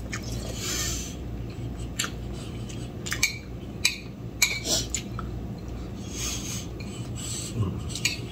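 Metal spoon and fork clinking and scraping against a ceramic soup bowl and dinner plate while eating, in scattered sharp clicks, with a couple of soft hissy swishes between them.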